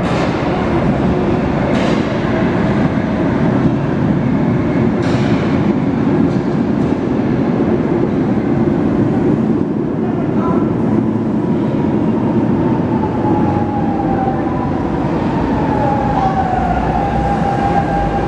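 Lisbon Metro train pulling into an underground station: a steady rumble of wheels on the rails, with a few knocks early on. In the second half a whine slides down in pitch as the train slows, then holds as it comes to a stop.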